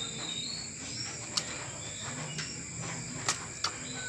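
Steady high-pitched insect chirring, like crickets, with two sharp clicks and a brief faint bird warble at the start.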